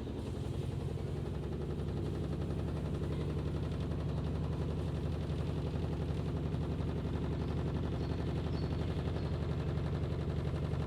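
IFB top-load washing machine running, a dense, fast rattling that grows a little louder over the first few seconds and then holds steady.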